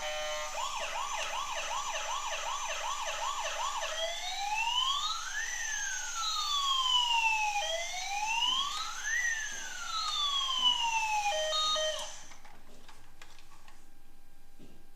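Electronic toy emergency-vehicle siren: first a fast yelp of about two and a half rising sweeps a second, then a slow wail rising and falling twice. It cuts off suddenly about four-fifths of the way through.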